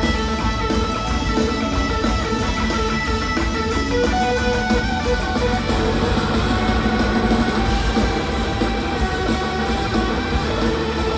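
Live band jam: electric guitar leading over organ, bass guitar and drums, playing continuously.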